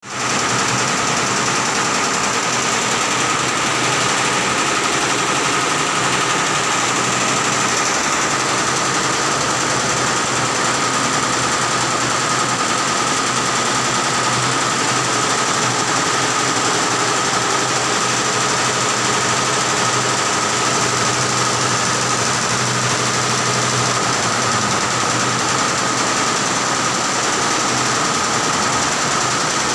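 Multi-head industrial embroidery machine running, its many heads stitching together in a steady mechanical chatter with a constant high whine.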